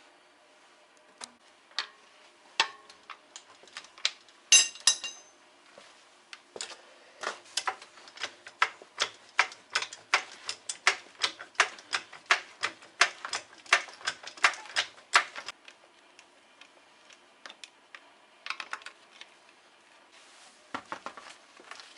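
Hand tools working on a car's front wheel and suspension. There is a ringing metal clatter about four seconds in, then a steady run of sharp metallic clicks, about three a second, lasting some nine seconds, like a ratchet wrench being worked, with scattered clinks near the end.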